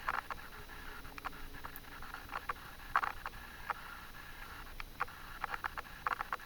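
Scattered small clicks and ticks at irregular intervals in a quiet room, with a slightly stronger pair about three seconds in. There is no single distinct knock.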